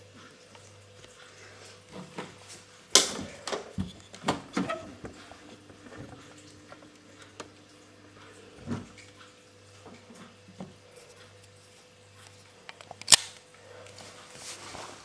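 Handling noise: a scatter of knocks and clicks close to the microphone, bunched a few seconds in, with the loudest a single sharp click about two seconds before the end, over a low steady hum.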